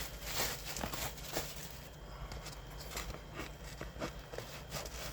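Handling of a mail package: irregular rustling of packaging with light clicks and taps as items are taken out.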